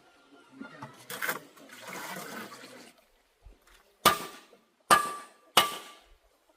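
Water rushing and sloshing briefly, then three sharp splashing hits a little under a second apart, each with a short ring.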